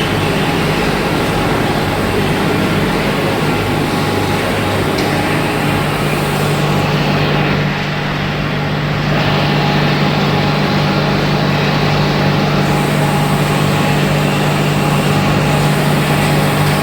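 Machinery of a sawdust briquette production line running steadily, with a constant low hum under a dense mechanical noise that shifts slightly about eight seconds in.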